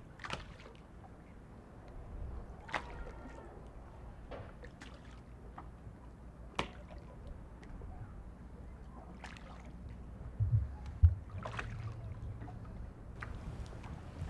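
Harbour water lapping and sloshing against a moored fishing boat's hull, with scattered short knocks and creaks. A couple of heavier thumps come about ten to eleven seconds in.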